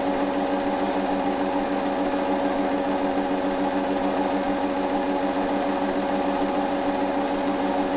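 Film projector running: a steady mechanical clatter with a constant hum.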